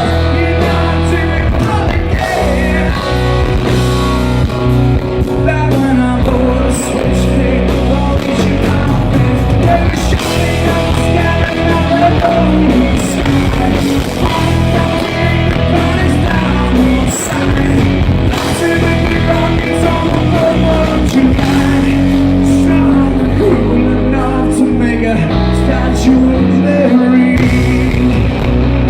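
Live rock band playing loud and steady through an instrumental stretch of the song, with no lyrics picked up.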